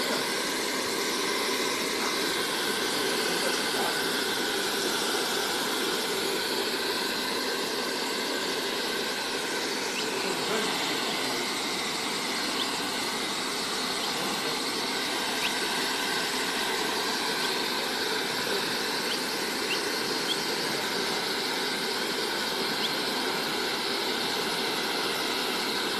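Handheld hair dryer running steadily: a constant blowing hiss with a high motor whine.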